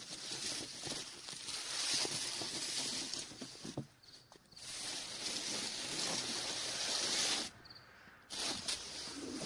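A hissing noise in long stretches of about three seconds, broken by two short dips, with faint scattered clicks.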